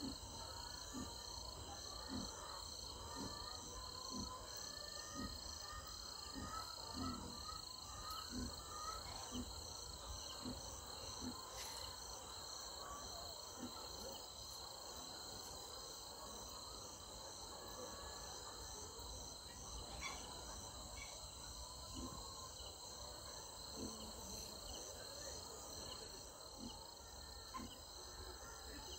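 Crickets chirring steadily in a regular pulsing rhythm, with faint higher chirps and soft low thumps about every half-second through the first half.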